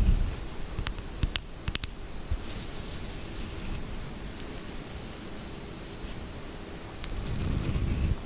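A few sharp taps on a bar of soap or its packaging in the first two seconds, then light scratching and rustling, growing louder near the end.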